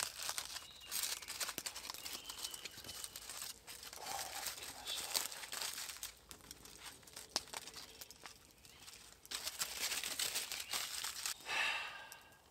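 Aluminium foil crinkling and tearing as it is peeled open off a baked potato fresh from the campfire, in irregular rustling spells with short pauses.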